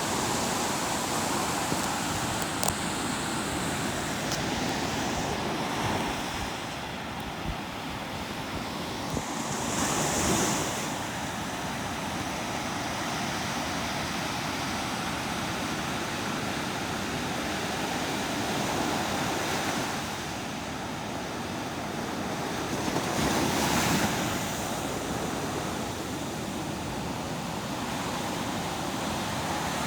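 Waves washing in: a steady rush of surf, with louder swells about ten seconds in and again around twenty-four seconds in.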